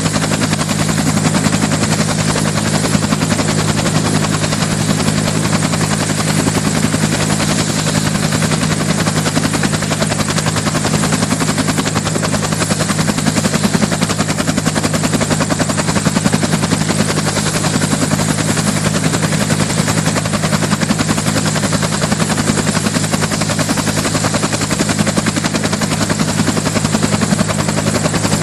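Helicopter in steady flight: a fast, even rotor chop over a steady engine hum, unchanging throughout.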